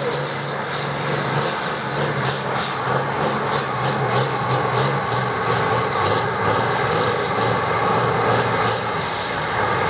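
Competition pulling tractor's engine running loud and steady, with a high thin whine that slides down in pitch near the end.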